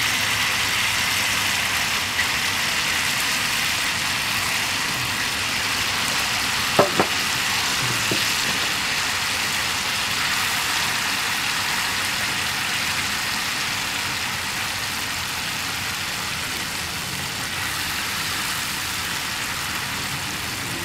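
Chicken and masala paste sizzling steadily in hot oil in a steel wok over charcoal as it is stirred with a wooden spatula, the sizzle easing a little toward the end. Two quick sharp knocks come about seven seconds in.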